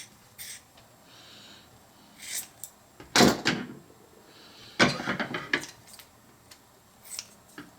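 Scissors cutting a strip of fiberglass cloth with a faint rasp, among loud knocks and clatters of things being handled and set down on a workbench, the loudest about three and five seconds in.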